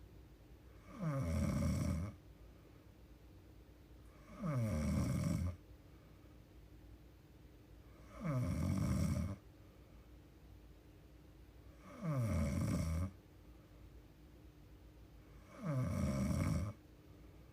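A young woman snoring in her sleep: five regular snores, one about every four seconds. Each lasts about a second and drops in pitch.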